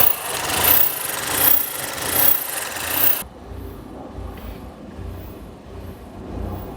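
A car engine running with a loud rhythmic rasping noise that swells about every three quarters of a second, the issue hashtagged as a misfire. A little after three seconds the rasp cuts off suddenly, leaving a lower, quieter rumble.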